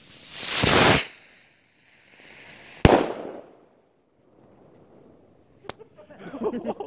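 A firework rocket launching with a rising whoosh that lasts about a second, then a loud bang about two seconds later as it bursts, with a short fading tail. A sharp click and a few scattered knocks follow near the end.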